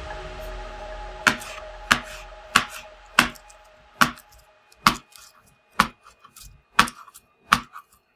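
Kitchen knife cutting through thick slime and tapping down onto a plastic cutting board: a sharp click with each cut, about nine cuts at a little under one a second, starting about a second in.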